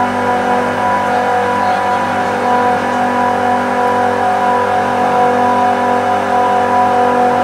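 Bank of industrial compressors running steadily: a loud, constant machine hum with several fixed tones held throughout.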